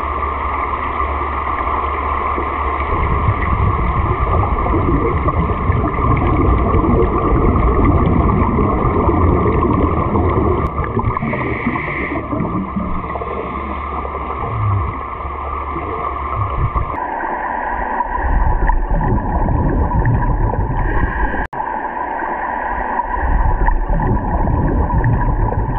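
Underwater ambience recorded in a pool: a steady rushing hiss with gurgling from a scuba diver's regulator and exhaled bubbles. The sound changes abruptly about two-thirds of the way through, and there is a single sharp click a little before the end.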